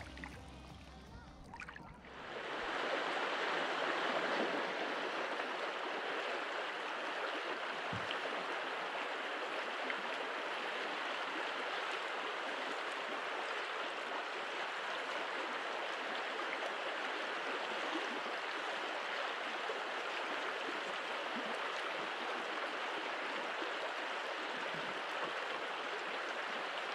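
Steady rush of flowing river water, starting about two seconds in and holding even throughout.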